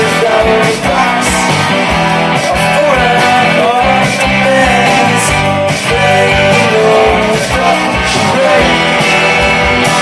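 A live rock band playing: electric guitars, bass guitar and drums, with a sung melody over the top. The whole mix stays loud and dense with a regular drum beat.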